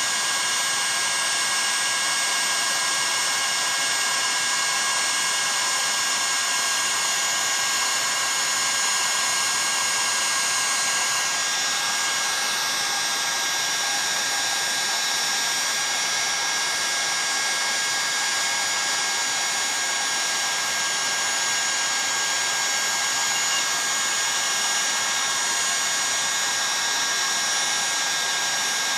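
Heat gun running continuously: a steady rush of blown air with a constant high whine from its fan motor. It is heating an aluminium chainsaw crankcase so the bearing seat expands for assembly.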